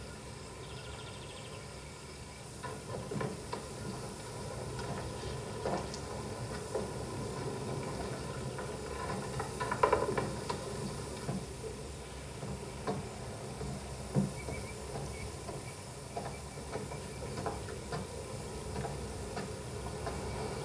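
Irregular footsteps and scuffs on the wooden ties of a railroad trestle, the loudest knock about ten seconds in, over a steady hiss.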